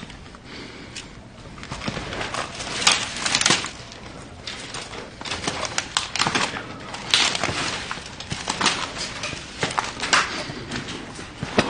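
Footsteps crunching and rustling through dry grass and brush, an irregular run of crackles and snaps.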